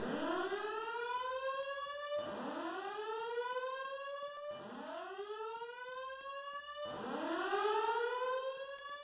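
Fire alarm voice evacuation system sounding its whoop tone: four rising sweeps in a row, each about two and a half seconds long and starting again low, the evacuation signal played between the recorded announcements.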